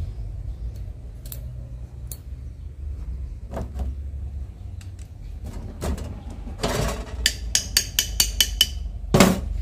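Screwdriver and seal ring clicking and scraping against the steel housing of a hydraulic cylinder while the seal is worked into its groove. Scattered light clicks, then a quick run of about five sharp ticks a second near the end and a louder knock just before the end, over a low steady rumble.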